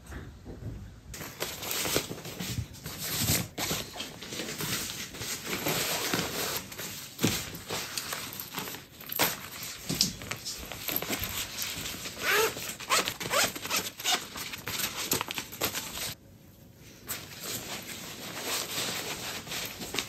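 Nylon packing cubes rustling and crinkling as they are handled and packed into a hard-shell suitcase, with scattered clicks and knocks of the case and its fittings.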